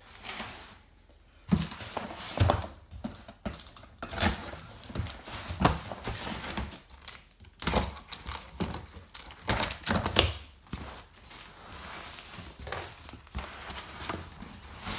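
Large cardboard shipping box being opened by hand: packing tape ripped off and cardboard flaps torn and pulled open, with irregular thumps and crinkling of cardboard.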